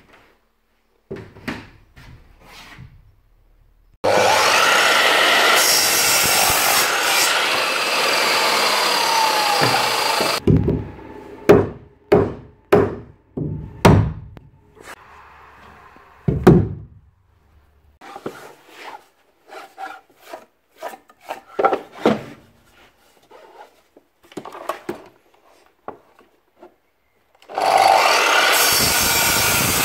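A power saw cutting timber for about six seconds, then a run of sharp hammer blows from a claw hammer driving nails into timber framing, followed by lighter scattered knocks and taps. Near the end a Makita sliding mitre saw starts cutting a batten.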